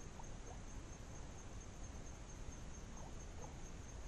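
Faint outdoor pond background: a low rumble and a steady high-pitched thin tone, with a few faint short chirps from a small animal near the start and about three seconds in.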